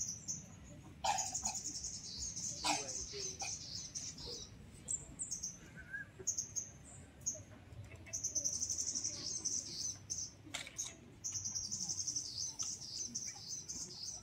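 Small birds chirping, with high, fast trills that come in runs and grow busier in the second half, over faint low background noise.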